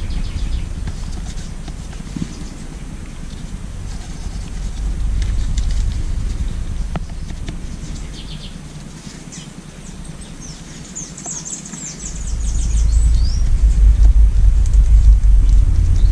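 Birds chirping, with a quick run of high chirps near the middle. Under them runs a loud, uneven low rumble that drops away for a few seconds and swells back about twelve seconds in.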